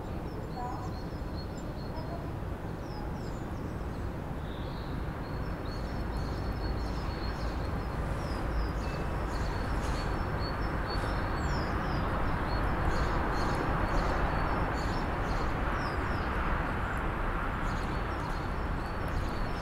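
City street ambience: a steady low traffic rumble that swells louder for several seconds in the middle, with small birds chirping throughout.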